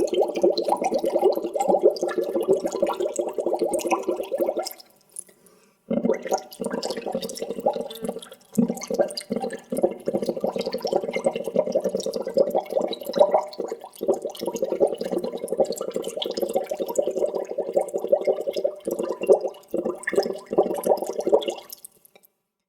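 Water bubbling: a dense, continuous stream of small bubble pops. It cuts out abruptly for about a second some five seconds in, and again just before the end.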